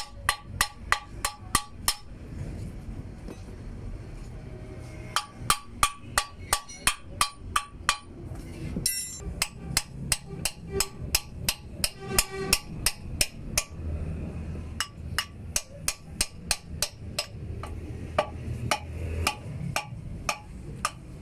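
Hammer blows on steel, a hammer striking a punch or drift against a truck-crane wheel hub during work on its hub seal. The sharp, ringing strikes come in quick runs of about four a second, with short pauses between the runs.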